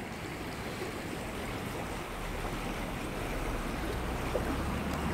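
Shallow river water running and rippling around wading legs: a steady rush of flowing water, with a low rumble growing louder after about two seconds.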